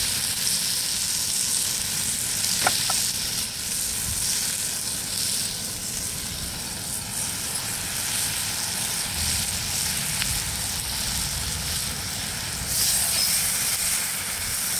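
Vegetables sizzling steadily in a cast-iron Dutch oven hung over an open wood fire as slabs of sauced pork ribs are laid in on top.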